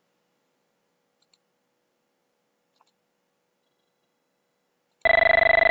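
Avaya one-X Communicator softphone ringing for an incoming call: a loud, buzzy electronic ring of steady pitch with a rapid pulse, starting about five seconds in. Before it there is near silence, with a couple of faint mouse clicks.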